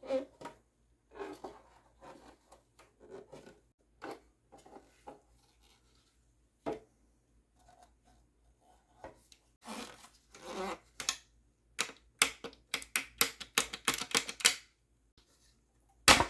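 Parts of an espresso machine being handled and taken apart: scattered clicks and scrapes, a quick run of sharp clicks about two-thirds of the way in, and one loud knock just before the end.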